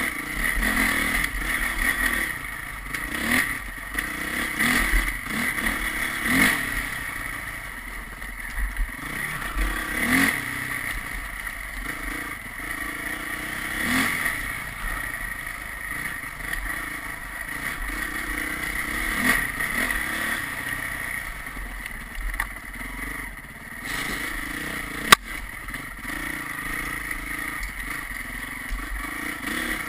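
Vehicle engine running while being driven on the road, its revs rising and falling every few seconds. There is one sharp click about 25 seconds in.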